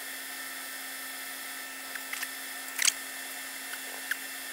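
Steady low electrical hum and hiss of a microsoldering bench, with a few small ticks of a soldering tool against the circuit board. The loudest tick comes nearly three seconds in.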